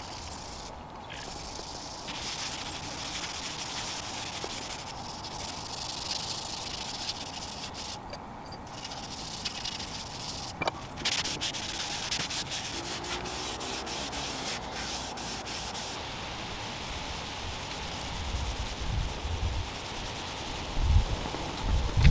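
A cloth rag rubbing wood stain into a bare wooden tabletop: a steady rubbing and wiping, cut off abruptly several times, with a few low knocks near the end.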